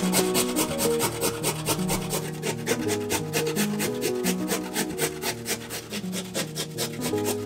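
Fresh turmeric root rasped on a stainless steel box grater in quick, even strokes, over background music with a melody.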